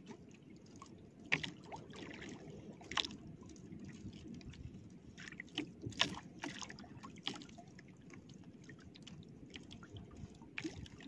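Sea water lapping against the hull of a small outrigger boat, with a few short, sharp slaps scattered through.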